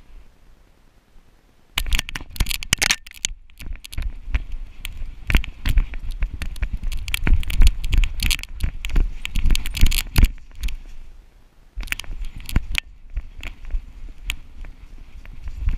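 Irregular knocking, rattling and scraping from a GoPro Hero3 strapped to a running giant schnauzer's back harness, mixed with paws scuffing through dry fallen leaves. It starts about two seconds in, with brief lulls near the end.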